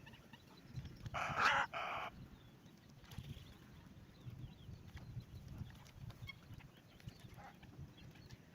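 A bird, of a chicken-like fowl kind, gives one loud harsh squawk lasting about a second, starting about a second in, followed by a few faint calls over a low background rumble.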